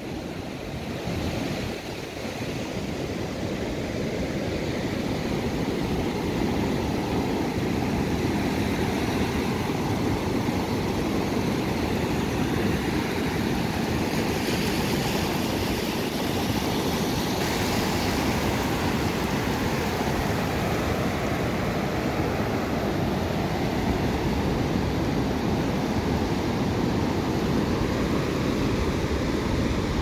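Steady rush of small waves washing over shallow water at a river mouth on the ocean, with a low rumble of wind on the microphone. The sound builds over the first few seconds, then holds even.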